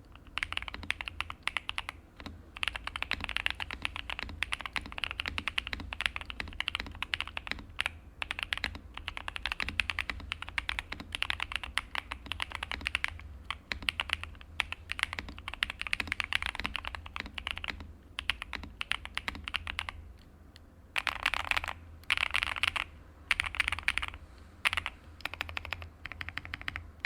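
Custom 75% gasket-mounted mechanical keyboard with lubed MMD Holy Panda tactile switches and Cherry-profile keycaps being typed on fast: a steady stream of clacky keystrokes that breaks into a few short bursts near the end.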